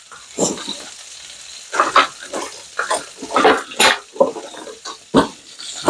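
Pork ribs sizzling in a frying pan, with irregular short knocks and rustles of handling throughout.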